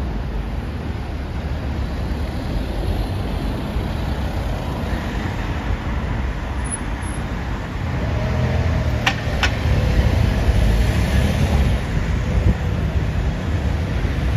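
Busy road traffic with London double-decker buses and cars passing close by: a steady low engine rumble that grows louder from about eight seconds in as a bus pulls past near the microphone. Two sharp clicks sound about nine seconds in.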